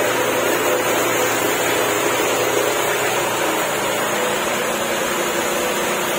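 Steady mechanical drone with a faint low hum, unchanging throughout.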